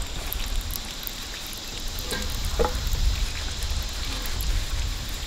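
Steady crackling hiss with a low rumble underneath. A short pitched squeak-like sound comes a little past two seconds in.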